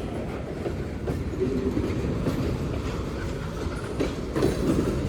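Freight cars of a Union Pacific manifest train rolling past, steel wheels running on the rails with scattered clicks, getting louder about four seconds in.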